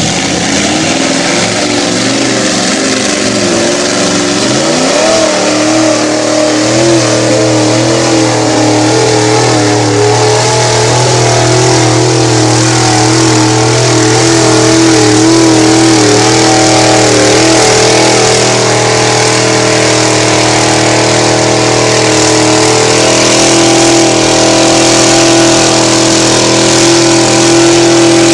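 Lifted mud-bogging pickup on oversized mud tires, its engine running hard at high revs as it churns through a mud pit. The revs climb about four seconds in, then hold steady and loud.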